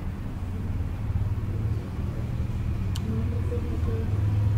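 Steady low rumble of background noise, with one sharp click about three seconds in.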